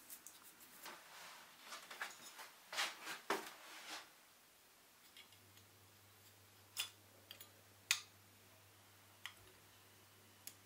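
Small clicks and light scraping of a clear plastic glazing piece being handled and pressed into a die-cast metal toy car body. A quick cluster of taps comes in the first four seconds, then a handful of single clicks spaced out.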